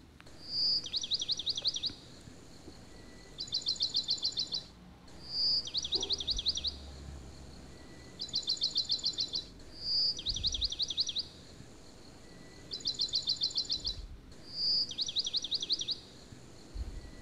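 A songbird singing the same short phrase over and over, about every four and a half seconds: a fast run of high notes, a single clear whistle, then a string of quick falling notes.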